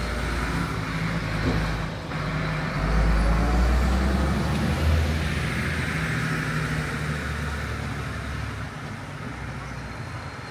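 Road traffic: a heavy motor vehicle's engine passing, its low hum swelling to its loudest about three to five seconds in and then slowly fading.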